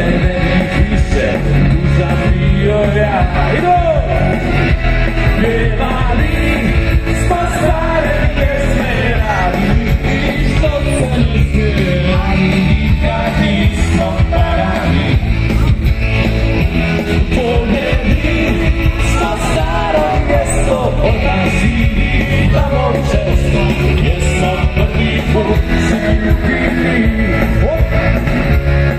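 Live pop-rock band playing: electric guitars and keyboard over a steady low end, with a man singing.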